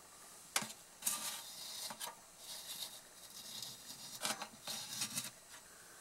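Handling noise: a sharp click about half a second in, then a run of irregular rubbing and scraping sounds with a few knocks, stopping about a second before the end.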